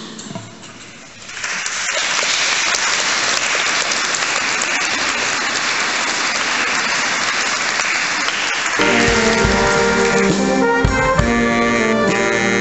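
A crowd applauding steadily for several seconds, then a brass band of trumpets and saxophones cuts in abruptly about nine seconds in, playing a tune.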